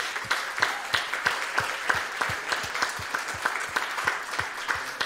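Congregation applauding, a dense patter of many hands, with one close clapper near the microphone keeping an even beat of about three claps a second.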